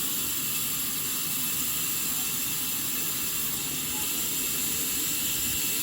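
Sawmill machinery running steadily, a constant loud hiss with a rough rumble underneath and no change in pace.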